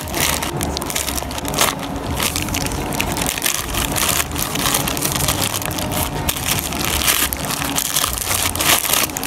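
Plastic mailer bag being torn open and crumpled by hand, a dense, continuous crackling and rustling of thin plastic film, with the inner plastic wrapping crinkling as the package is pulled out near the end.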